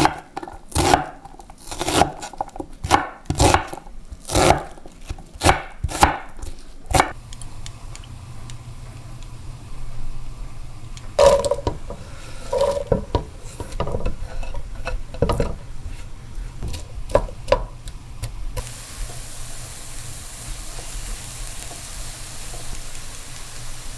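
A knife chopping onion on a wooden cutting board, about two chops a second, for the first seven seconds. Then scattered knocks and clatter as the diced onion goes off the board into a pot. From about eighteen seconds in, a steady sizzle of chopped herbs frying in oil in a stainless steel skillet.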